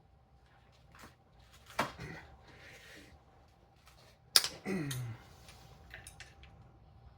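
Metal clinks of a wrench working a tight 10mm camshaft cap bolt on an engine cylinder head: one sharp knock about two seconds in and a louder clank just past the middle, with a few lighter ticks near the end.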